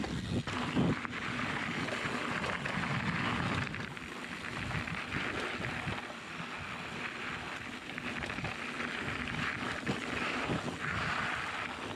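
Mountain bike rolling fast over a rocky dirt trail: steady tyre noise on gravel and dirt, with frequent short knocks and rattles as the bike hits bumps and stones.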